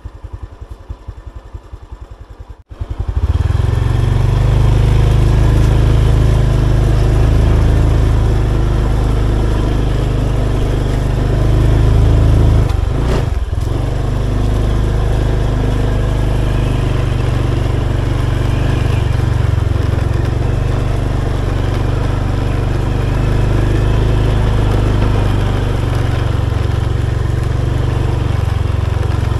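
Motorbike engine running steadily while riding a dirt forest trail, with a heavy low rumble. About three seconds in it jumps abruptly to much louder and stays so.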